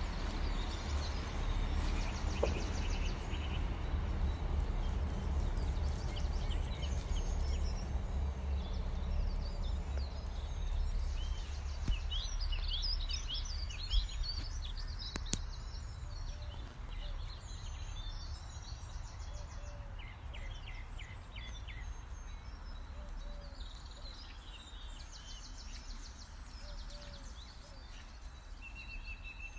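Countryside ambience: small birds chirping and trilling over a steady low rumble. The birdsong is busiest about halfway through, with a couple of sharp clicks around then, and the rumble eases off in the second half.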